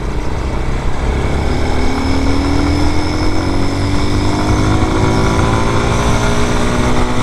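Vitacci Raven 250 dirt bike's air-cooled single-cylinder engine running under way, its pitch climbing slowly from about a second and a half in as the bike picks up speed.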